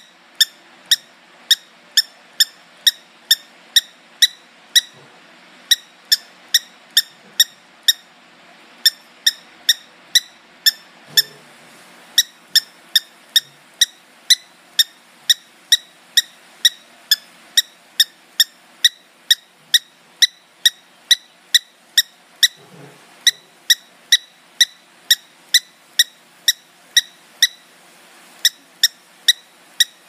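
Cockatiel making a long run of short, high-pitched squeaky chirps, about two to three a second, pausing briefly now and then.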